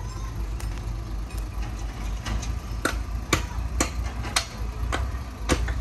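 Heavy diesel earthmoving machinery running with a steady low rumble, with sharp metallic clacks about twice a second from about two seconds in.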